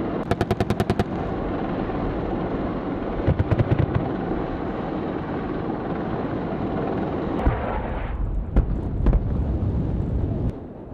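Two short bursts of rapid automatic cannon fire from an AH-64 Apache's 30 mm chain gun, one at the start and one about three seconds in, over a steady rumble. A few separate heavy booms follow between about seven and nine seconds in.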